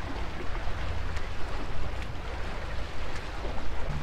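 Wind buffeting the microphone in a steady, gusting rumble, with small waves washing against the jetty's rocks.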